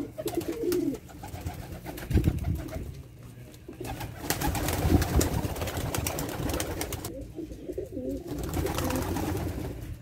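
Domestic pigeons cooing in low, wavering calls near the start and again near the end, with a spell of wing flapping in the middle.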